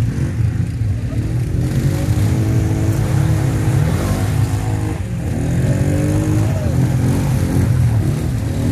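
Off-road vehicle engines running, a steady low rumble with one engine's pitch rising and falling as it is revved.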